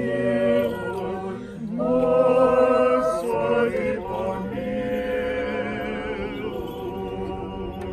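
Unaccompanied voices singing an Orthodox litany response together in harmony, with held notes and a slight waver. The singing breaks off briefly a couple of times and ends at the close.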